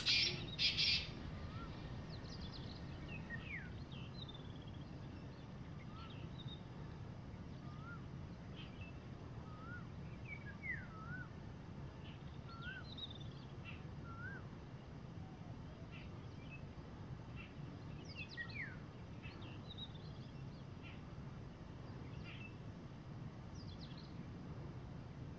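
Faint, scattered chirps and short whistled notes of wild birds, some gliding up and down, over a steady low background noise. A short, loud, harsh burst comes right at the start.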